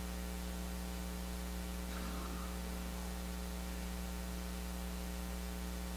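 Steady electrical mains hum, a low drone with evenly spaced overtones, holding at one level throughout.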